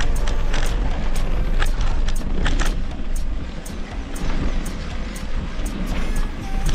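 Mountain bike ridden over a rough dirt track: wind buffeting the camera's microphone and tyre rumble, with sharp rattling clicks from the bike jolting over bumps.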